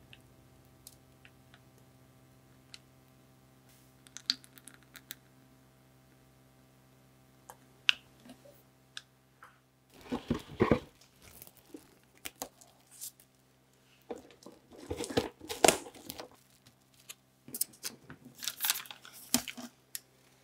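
Cling film crinkling and rustling in irregular bursts as a film-wrapped stainless cake ring is handled, after a few faint clicks in the first half.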